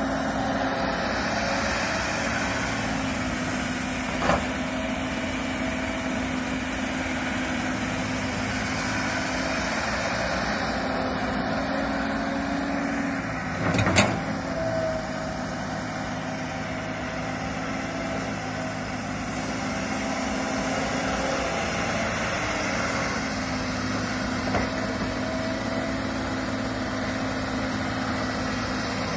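Komatsu hydraulic crawler excavator's diesel engine running steadily as the machine digs and swings. A sharp knock comes about four seconds in, a louder one about halfway through, and a fainter one near the end.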